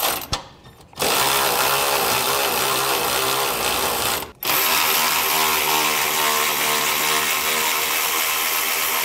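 Cordless electric ratchet spinning a 13 mm socket to back off the nuts holding an active air dam motor to its studs. A few clicks as it is set on, then a steady motor whir in two long runs, broken by a short pause about four seconds in.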